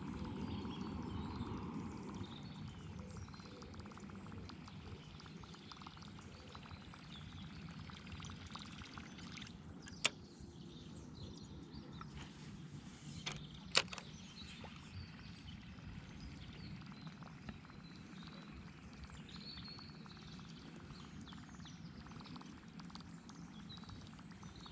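Quiet lapping water and a low steady rumble, broken by two sharp clicks about ten seconds in and again about four seconds later.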